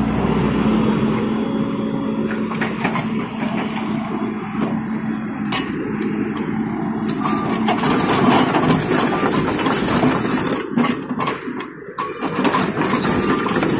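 Volvo crawler excavator's diesel engine running steadily while the machine is worked from the cab, with a few sharp knocks and a higher whine joining in about halfway through.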